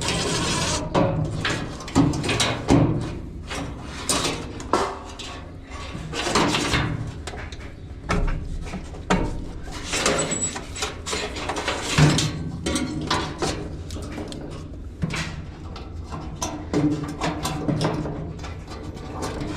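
Parts of a washing machine being pulled off and handled by hand: irregular clicks, knocks and rustling, with the loudest knock about twelve seconds in.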